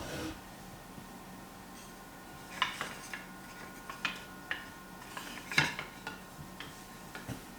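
A low thump at the start, then from a couple of seconds in an irregular series of light, sharp clinks and knocks of hard objects being handled, the loudest about halfway through.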